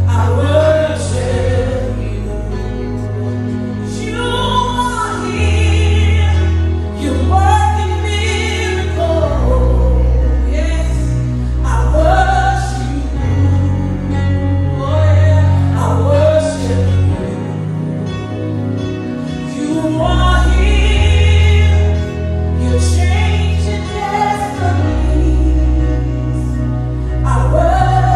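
Live gospel worship song: a woman's lead voice on microphone sings phrases with backing singers, over sustained bass notes that change every second or two.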